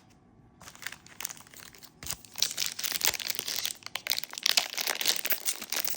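Trading-card pack wrapper being crinkled and torn open: dense crackling and rustling that starts about half a second in and grows louder from about two seconds.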